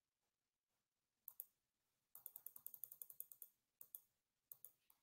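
Faint computer mouse sounds: a quick run of about a dozen even scroll-wheel ticks in the middle, with separate pairs of sharp button clicks before and after it.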